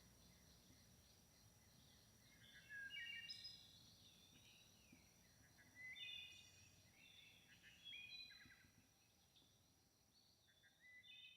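Wood thrush singing: several short, flute-like phrases of stepped whistled notes, each about a second long and a few seconds apart, over a faint steady high-pitched tone.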